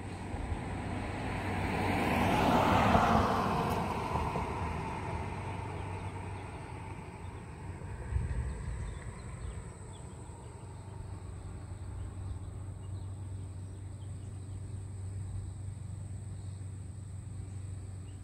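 A car driving past, swelling to its loudest about three seconds in and then fading away. A shorter, lower rumble follows about eight seconds in.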